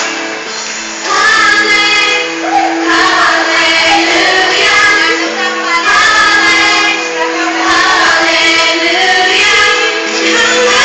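Music for the dance: a song with singing over a sustained instrumental backing, the voices coming in louder about a second in.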